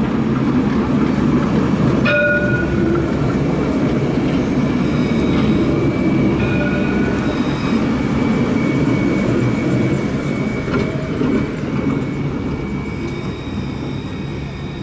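Alstom Citadis 302 low-floor electric tram passing close by, a dense steady rumble of its wheels on the rails with a thin high-pitched tone over it. It grows fainter in the last few seconds as the tram moves off.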